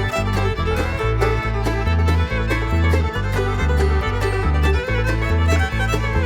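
Background music with a steady beat: an upbeat country-style track with fiddle and plucked strings.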